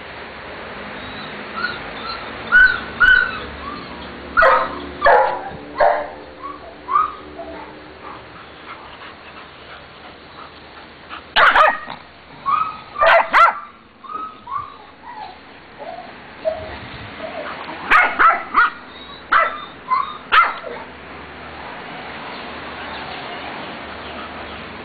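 A bull terrier and a shih tzu at play: sharp play barks in several bursts, with short high yips and whines between them. The barking dies down in the last few seconds.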